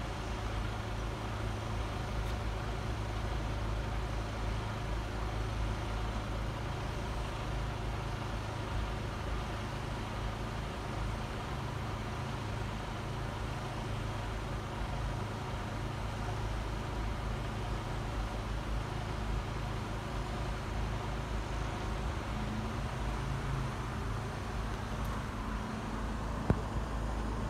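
Engine idling steadily, a low drone that does not change. A single sharp knock near the end.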